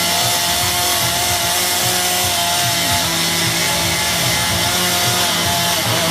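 Gasoline chainsaw running steadily at high speed while carving into a log, its engine note holding a constant pitch.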